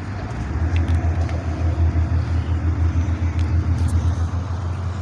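An engine running with a steady, low, pulsing throb, which grows louder about half a second in.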